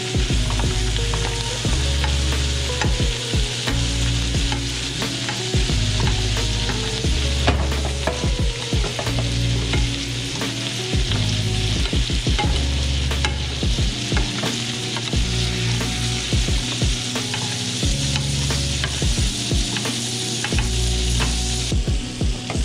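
Salmon fillets frying in butter in a skillet, sizzling steadily, while a metal spoon scrapes and clinks against the pan as the butter is spooned over them.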